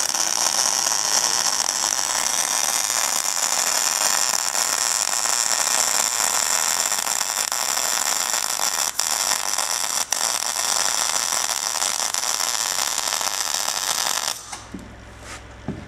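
Gas torch flame hissing steadily while it heats the joint of a wide band saw blade, then shut off abruptly about a second and a half before the end, followed by a few light knocks.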